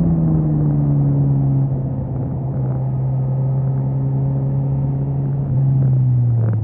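Suzuki GSX-S 1000's inline-four engine slowing down, its note falling steadily. It is briefly louder about five and a half seconds in, then the note drops further near the end.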